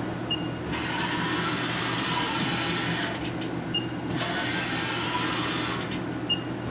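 Haas VF-1 CNC vertical machining center running through a repeated motion cycle: a short high beep, then about two and a half seconds of motor whine that rises and falls, twice over, with a third beep near the end. A steady low machine hum runs underneath.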